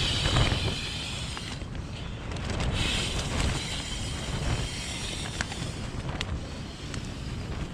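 Wind buffeting the microphone in a low rumble, with long airy breaths blown by mouth into an inflatable camping pillow, one at the start and another about three seconds in.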